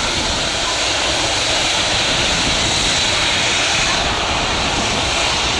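An Icelandair Boeing 757-200's Rolls-Royce RB211 turbofans run at low power as the jet rolls along the runway, making a steady whine and rush.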